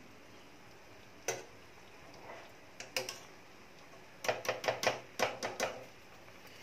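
Metal wire-mesh skimmer tapping against a pan while part-cooked basmati rice is spread in a layer: a single clink, a pair about a second and a half later, then a quick run of about eight clinks.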